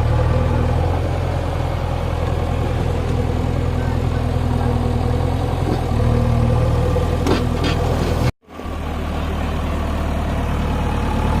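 Backhoe loader's diesel engine running steadily with a low hum; the sound cuts out abruptly for a moment about eight seconds in, then returns.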